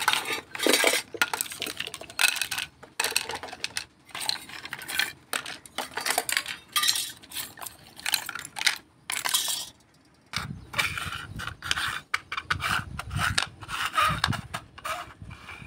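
Toy kitchen pieces, mostly plastic, clattering and clinking as they are rummaged through and moved about in a pile. After a short pause about ten seconds in, duller knocks and scrapes as a small plastic toy stove is handled on a stone floor.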